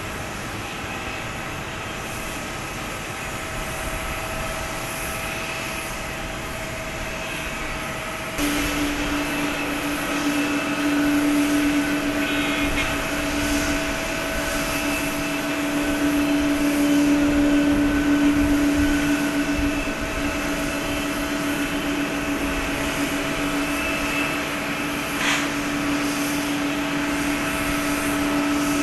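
Airbus A321neo's Pratt & Whitney geared turbofan engines running with a steady whine over a rushing noise. About eight seconds in, a stronger low whine sets in and the sound gets louder.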